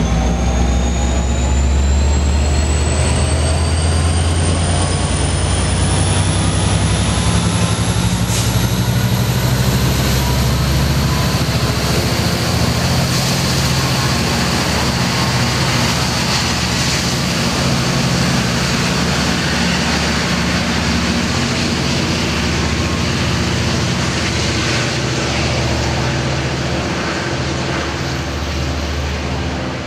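Amtrak F59PHI diesel-electric locomotive running under power, its engine hum steady beneath a turbocharger whine that rises in pitch over the first dozen seconds and then holds. One sharp knock comes about eight seconds in.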